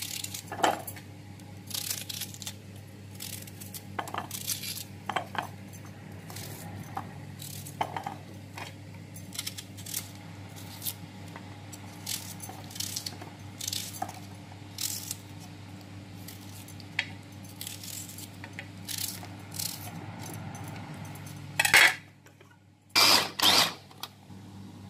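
Onions being handled and loaded into a plastic food-chopper bowl: irregular clicks and knocks against plastic and a plate, over a steady low hum. Near the end come two short loud bursts.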